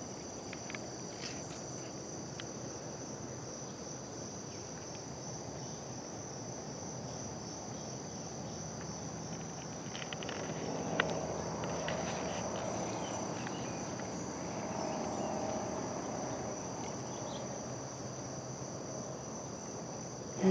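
Steady, continuous high-pitched insect chorus of crickets or similar singing insects. A fainter, lower sound swells up in the middle and fades again, with a single click partway through.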